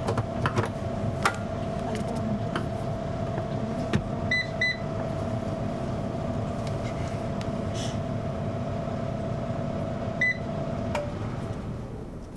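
Hair dryer blowing on a cat's fur, a steady hum with a held whine, switched off about eleven seconds in. A few short high beeps sound over it.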